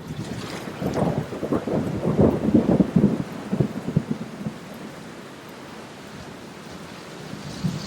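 Rain pattering on window glass, with a low rumbling, crackling swell from about one second in to about four and a half seconds, then settling to a steady hiss.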